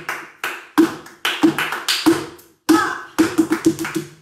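Flamenco footwork, the heels and soles of flamenco shoes striking a wooden floor, mixed with hand clapping (palmas) in a bulerías rhythm. The strikes come about three a second, then a quick run of strikes near the end.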